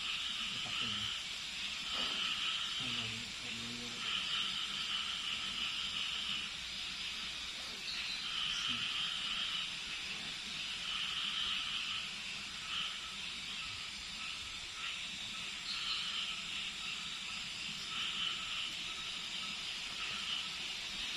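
Night-time animal chorus: a high, shrill buzzing at two pitches that swells and fades every second or two.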